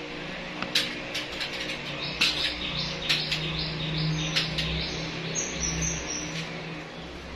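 Oyster mushroom clusters being twisted by hand off hanging polythene-wrapped straw bags: the plastic rustles and gives a run of sharp crackles, densest in the first half. A few short high chirps come near the end, over a low steady hum.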